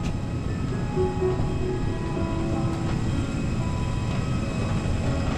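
Steady low rumble of an airliner cabin while passengers wait to deplane, with a few faint clicks.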